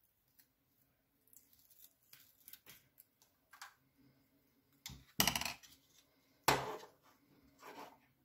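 Plastic parts of a dismantled third brake light being handled: the clear LED carrier and its strip rubbing and scraping. Two louder scrapes come about five seconds in and again a second and a half later.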